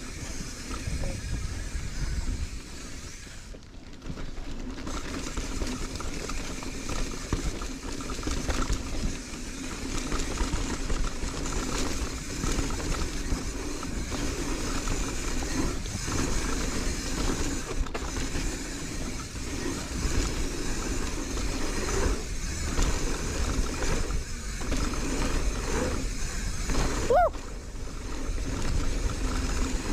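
Marin San Quentin hardtail mountain bike riding down a dirt bike-park trail: steady wind rush on the microphone over tyre noise, with bike rattles over bumps. A brief rising squeal about three seconds before the end.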